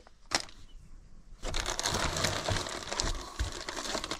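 A single click, then packaging crinkling and rustling as it is handled, starting about a second and a half in.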